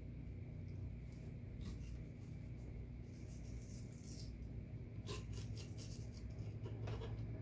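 Kitchen knife scraping and slicing against a wooden cutting board as a fish is filleted and its fillet skinned: soft scraping strokes in short runs, clearest about three and five seconds in, over a steady low hum.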